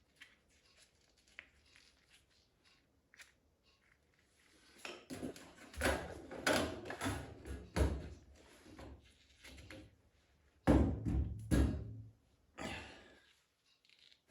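Faint clicks, then a run of clunks and knocks, with two loud thuds near the end.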